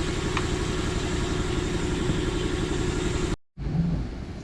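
Air compressor running steadily with a low, even chug, cutting off abruptly a little over three seconds in.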